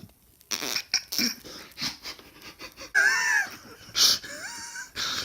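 A drunk man asleep, breathing noisily: irregular snorting puffs, with a few high, gliding, squeaky wheezes.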